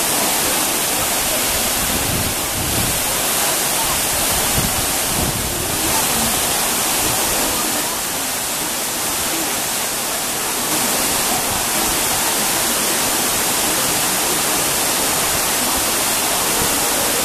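Dudhsagar Falls' water pouring down, a loud, steady rushing hiss with no let-up.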